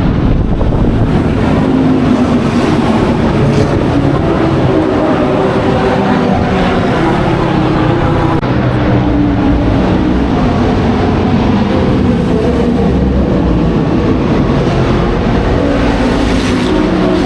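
Historic racing car engines running, their pitch slowly rising and falling.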